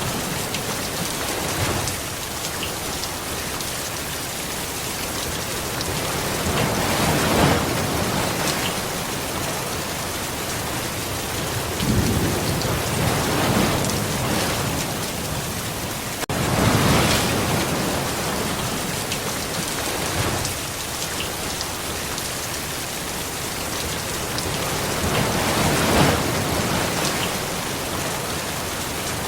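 Steady rainfall hissing, with rolling thunder rumbling in several slow swells, about four times.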